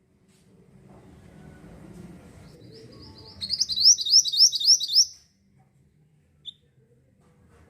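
A mantenan bird singing: a fast run of about eight sharp, rising whistled notes lasting under two seconds, followed a little later by a single short chirp.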